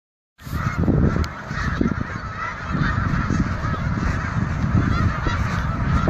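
A huge flock of white geese calling all at once, a continuous din of overlapping honks with a low rumble underneath. It starts abruptly about half a second in.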